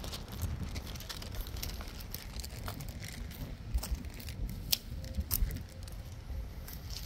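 Footsteps over dry, cracked mud and dead twigs, with scattered sharp crackles, over a steady low rumble.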